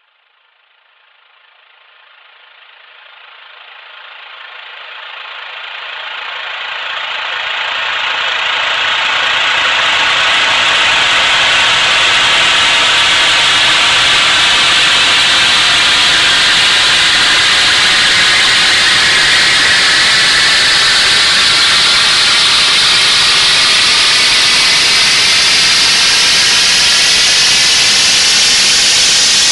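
Speaker-cleaning noise signal: a loud, even hiss, strongest in the treble, that fades in from silence over about ten seconds and then holds steady.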